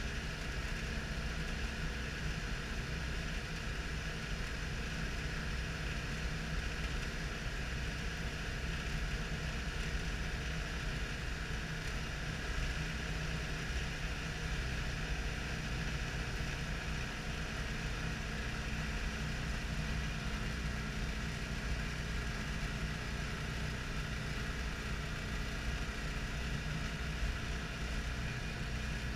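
Citroën Dyane 6's air-cooled flat-twin engine running steadily at cruising speed, heard from inside the cabin along with road noise.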